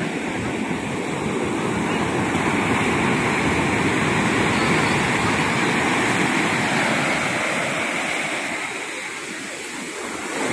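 Ocean surf breaking and washing up a sandy beach: a steady rush of water that swells a couple of seconds in and eases off near the end.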